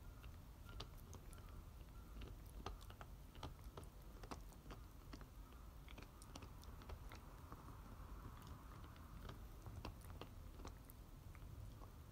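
American Cocker Spaniel gnawing a toy bone: faint, irregular clicks of teeth on the bone.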